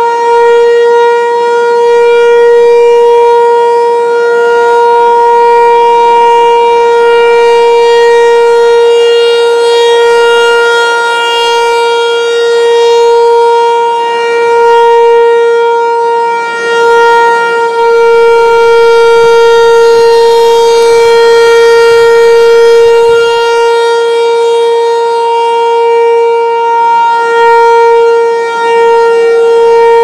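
American Signal T-128 tornado siren sounding its alert signal: one steady, loud held pitch with many overtones. The volume swells and dips every several seconds as the rotating horn sweeps around.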